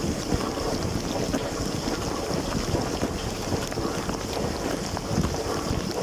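LG dishwasher running its wash, heard from inside the tub: water jets spraying and splashing against the racks and dishes in a steady, even rush, heaviest in the low end.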